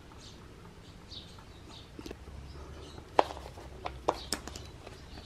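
A few short, sharp plastic clicks and knocks as a portable tyre inflator and its power pack are handled and set up, with faint bird chirps in the background.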